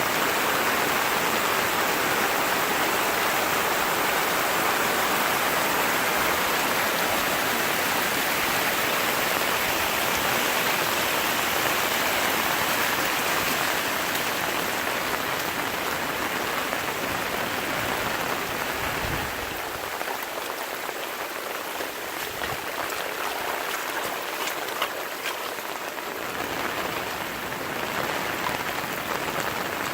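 Heavy rain pouring down in a dense, steady hiss, easing a little about two-thirds of the way through. A brief low thud sounds once or twice.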